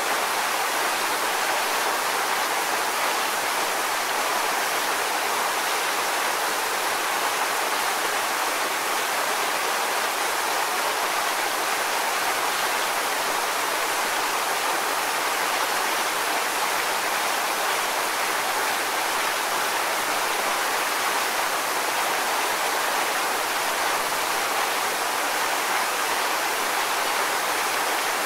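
Waterfall: water pouring and splashing in a steady, unbroken rush.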